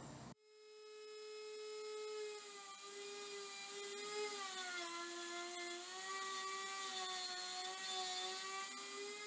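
Power woodworking tool whining steadily while cutting a groove along a wooden side piece. Its pitch sags for a couple of seconds midway as the blade takes the load, then recovers.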